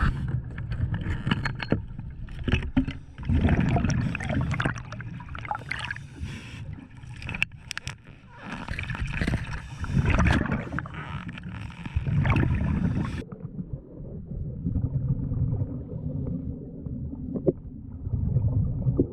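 Water splashing and bubbling with knocks and handling noise. About thirteen seconds in, the sound suddenly turns dull and muffled, leaving only a low rumble.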